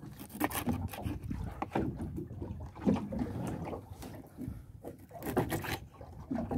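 On-board sound of a small open fishing boat at sea: a steady low rumble of wind and water with irregular knocks and rubbing on deck.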